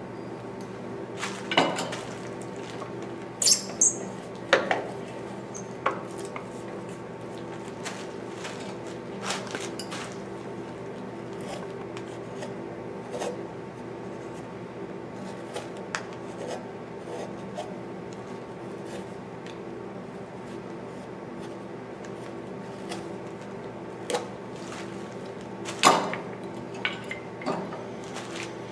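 A hand carving knife cutting and paring white cedar: scattered short scraping cuts and sharp clicks, with a cluster a few seconds in and another near the end, over a steady low hum.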